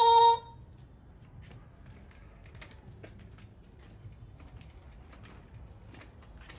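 A toddler's high-pitched vocal sound cuts off about half a second in. Then come faint, scattered clicks and taps from a small child's bicycle with training wheels being pushed over concrete.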